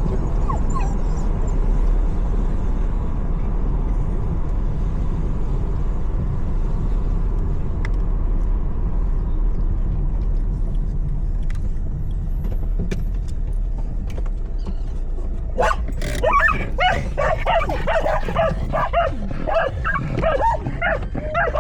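Steady low road rumble inside a moving vehicle. About three-quarters of the way through, several dogs in the vehicle break into excited, rapid barking and yipping, the dogs recognising that they have arrived at the dog park.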